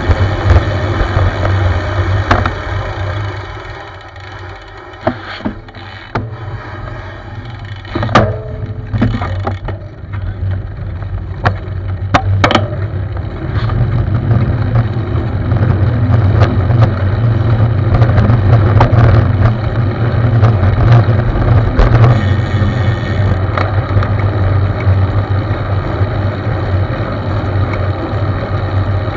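Wind buffeting the microphone of a camera mounted on a moving road bike, a loud low rumble mixed with road noise. It eases for several seconds in the middle, when a few sharp knocks come through, then rises again.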